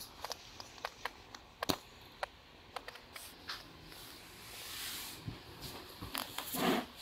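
Cloth rustling on a bed, with scattered light clicks and a louder rustle near the end.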